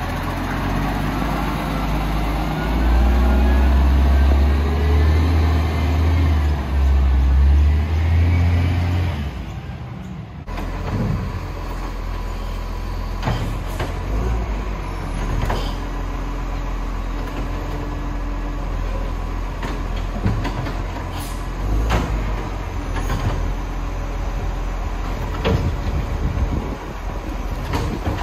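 Garbage truck's diesel engine working hard with a deep surge and a rising and falling whine for several seconds, then running more steadily with scattered knocks and clunks.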